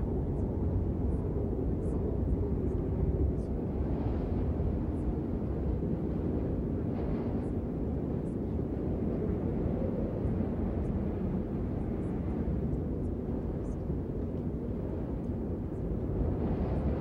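A steady low rumbling noise with slow swells, and faint scattered ticks in the high end.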